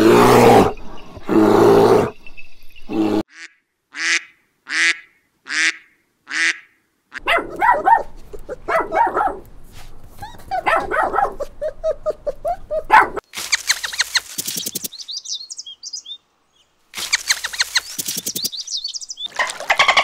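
A run of different animals' calls: a polar bear's deep, rough growls at the start, a row of short evenly spaced calls, then a dog's barks and yelps in the middle. Near the end come rapid click trains and high whistles from a sea mammal.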